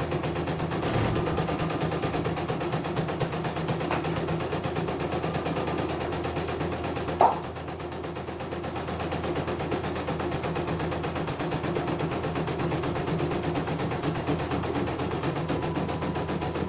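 CNY E900 computerised embroidery machine stitching out a design, its needle running in a rapid steady rhythm while the hoop steps the fabric, with one sharp click about seven seconds in.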